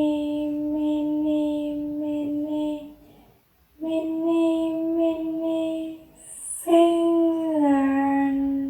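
A voice chanting "mini mini" over and over on one steady high note, in three runs with short breaks between them; the last run drops in pitch near the end.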